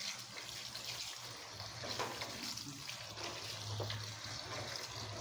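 Tap water running in a thin stream onto cooked macaroni in a plastic colander in a steel sink, a hand stirring the pasta under it to rinse it; the sound is a steady splashing.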